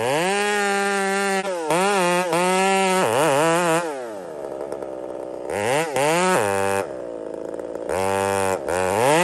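Husqvarna 372XP two-stroke chainsaw running at high revs in the cut through a large tree trunk, its pitch dipping and recovering as the bar loads up. It drops back to a lower idle for a second or so twice, about four and seven seconds in, before throttling up again.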